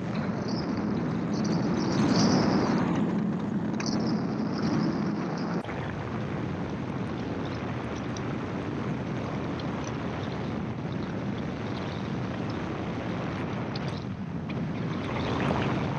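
Gyroplane's engine and propeller running in flight, with wind noise. The engine note drops and quietens about five and a half seconds in.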